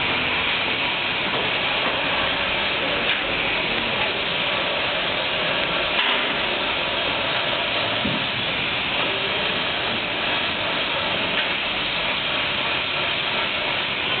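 Stainless-steel twin-shell V blender running, giving a steady, even mechanical hiss.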